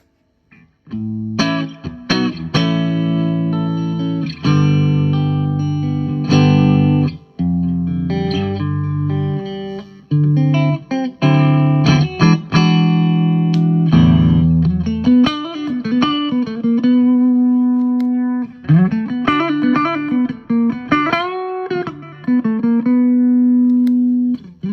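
Electric guitar playing a run of ringing chords, then single-note lines with string bends and wide vibrato in the last third.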